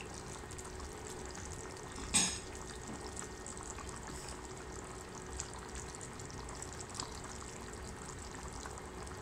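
Chicken curry gravy simmering in a frying pan, a steady bubbling hiss as the sauce reduces. One short knock about two seconds in.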